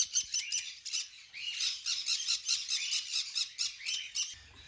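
Small parrots chirping in quick, high, repeated calls, about five a second, with a brief pause about a second in.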